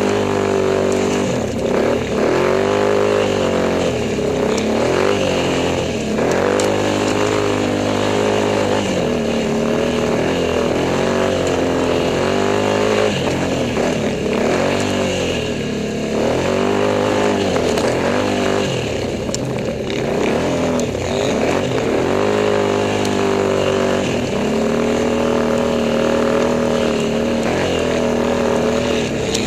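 ATV engine revving up and down again and again while riding through deep snow, its pitch rising and falling every second or two.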